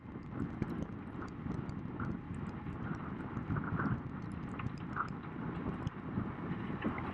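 Wind buffeting an outdoor camera microphone low over choppy river water, with irregular splashing and small clicks from water spray.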